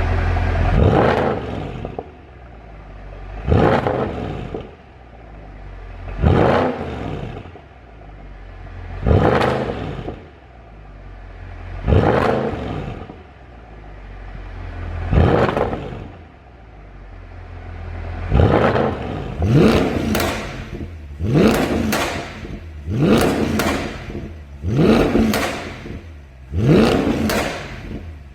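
Mercedes-Benz W212 E63 AMG V8 being revved in repeated blips, each rev rising and then falling away with popping and crackling from the exhaust on the overrun, the sound of a pop-and-crackle tune. The revs come about every three seconds at first, then faster, about every second and a half to two seconds, with sharper bangs, for roughly the last third.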